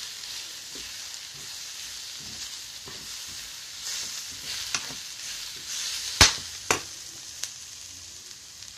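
Spiced vegetables and tomato paste frying in a stainless steel pan: a steady sizzle while a metal spoon stirs and scrapes, clinking against the pan a few times, loudest about six seconds in.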